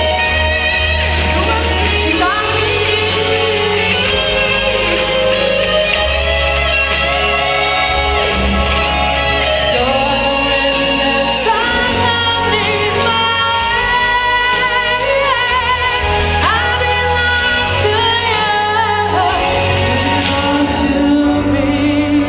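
A song with a singing voice over an accompaniment with a steady bass line. Near the end the highest parts of the sound fall away.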